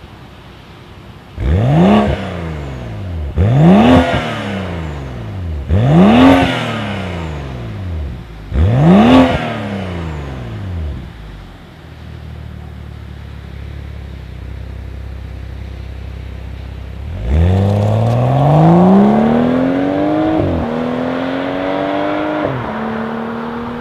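BMW F10 535i's turbocharged inline-six through a Dinan stainless steel free-flow exhaust. It gives four quick throttle blips from idle, each rising sharply and falling back, then idles for a few seconds. Then the car pulls away accelerating, with two upshifts near the end.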